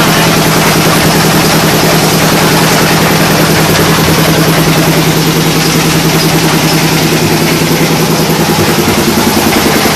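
MCB12M clay brick-making machine running steadily during a quality-control test run, its drive and roller turning with a loud, even hum at a constant pitch.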